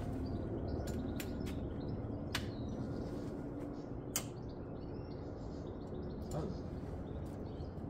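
Steady low background rumble with a few sharp clicks and taps, from handling the scooter between start attempts.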